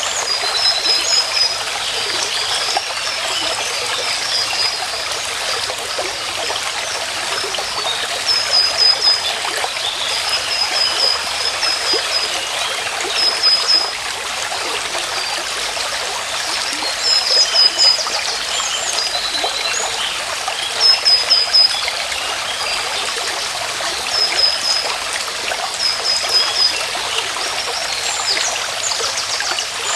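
Small stream trickling and running steadily, with a bird repeating a short, quick run of high chirps every few seconds.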